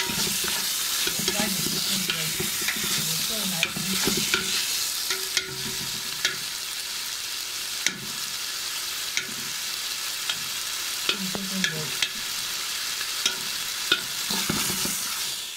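Chicken breast pieces frying in a pan, a steady sizzling hiss, while a spatula stirs them with sharp clicks against the pan now and then.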